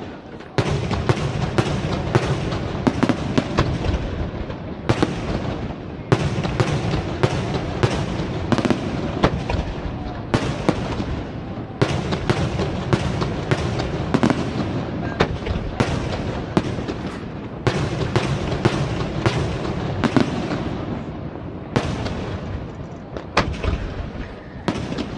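Aerial firework shells bursting in rapid succession: a dense, continuous string of sharp bangs, after a brief lull at the very start.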